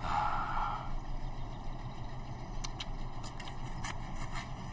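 Heavy machinery engine idling, a steady low rumble, with a short hiss in the first second and a few faint clicks later on.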